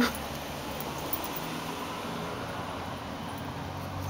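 Steady outdoor background noise, a low hum under an even hiss, with one sharp click right at the start.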